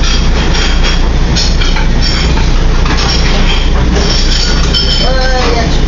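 Commercial kitchen line at work: a steady loud roar of the exhaust hood and gas burners, with sauté pans and metal utensils clattering, clinking and scraping, giving short high-pitched metallic squeals.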